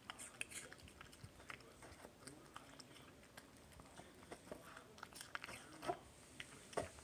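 Pomeranian puppy chewing and crunching pieces of pear: faint, irregular crunches and clicks, with a couple of louder ones near the end.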